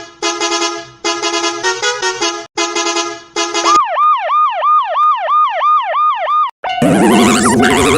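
Cartoon emergency-vehicle sound effects: a run of short horn-like blasts, then a siren of quick falling sweeps at about three a second. Near the end a loud jumble of overlapping sounds takes over.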